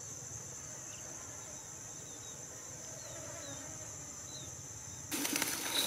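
Steady high-pitched buzzing of field insects, with a few faint short chirps over it. About five seconds in, a sudden louder rustling and clicking cuts in.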